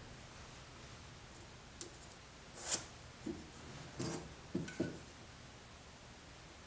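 Faint clicks and scrapes of a metal combination square and a pencil against a wooden block as it is marked out. A short scrape a little before the middle is the loudest, followed by a few light taps and clicks.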